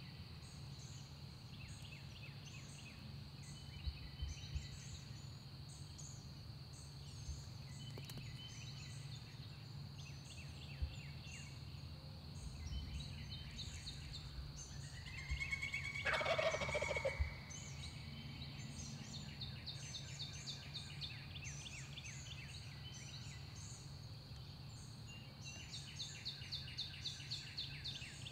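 Eastern wild turkey gobbler gobbling once, a loud rattling gobble a little over halfway through.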